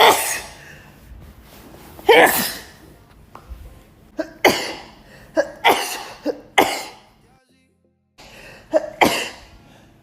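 A woman sneezing again and again in a fit: a string of short, sharp sneezes with quick breaths between them, bunched close together in the middle and broken by a brief pause near the end.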